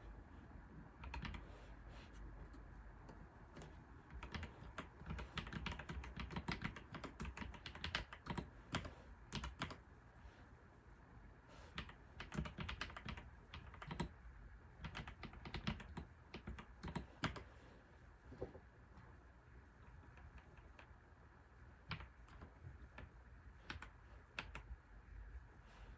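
Typing on a computer keyboard in irregular bursts of keystrokes, busiest in the first two-thirds and sparser toward the end, over a faint low hum.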